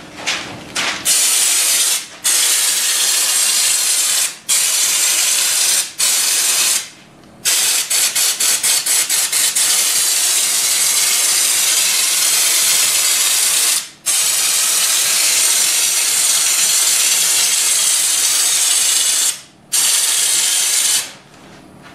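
Compressed-air Raptor Liner schutz gun spraying textured bed liner, a loud hiss in long bursts with short pauses as the trigger is released. About eight seconds in there is a run of short rapid trigger pulls, about four a second, before long steady passes resume.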